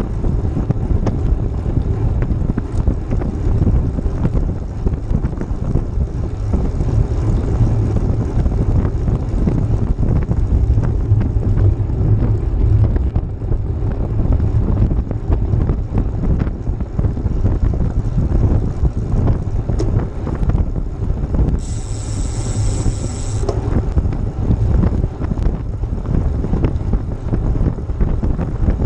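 Wind buffeting the microphone of a moving camera, a loud, continuous low rumble. About two-thirds of the way through, a high hiss comes in for about two seconds.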